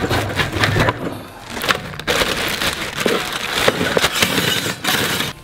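Clear plastic wrapping crinkling and rustling as wrapped parts are lifted out of a cardboard box and handled, with a short lull about a second in.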